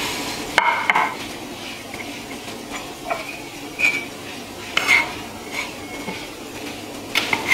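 Light clinks and knocks against a drinking glass as chunks of palm sugar are put into it: about ten scattered strikes, several with a brief ringing tone.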